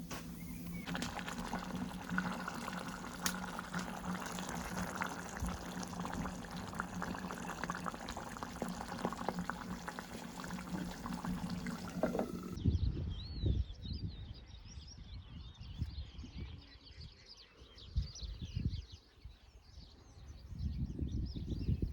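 Water pouring and trickling over a steady low hum. About twelve seconds in the sound changes abruptly to high chirping calls, with scattered dull knocks.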